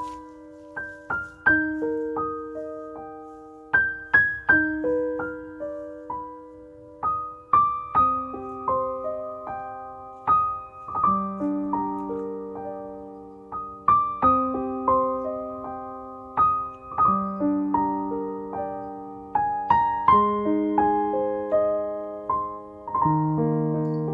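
Background music: a slow, gentle solo piano or electric-piano melody of single struck notes, each ringing out and fading, with lower notes entering about halfway through.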